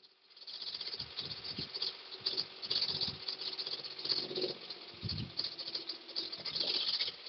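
Komatsu PC30-3 mini excavator's diesel engine running, heard faintly as an irregular rattling clatter that begins about half a second in.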